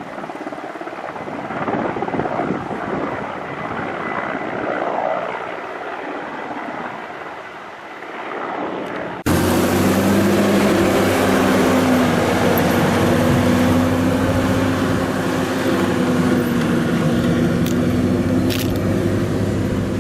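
A rough, irregular outdoor noise for about nine seconds, then, after a sudden cut, an engine running loud and steady with a low, even hum.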